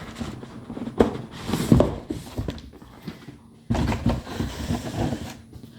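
Irregular rustling and knocking of a cardboard box and its packaging as a doll is pulled out of it, with a few sharp knocks and a longer burst of handling noise about four seconds in.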